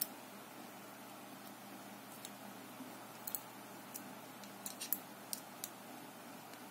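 Faint, scattered metallic clicks of a 3 mm Allen key working the pulley bolt on a Shimano SLX rear derailleur cage as the bolt is tightened, over a steady low background hum.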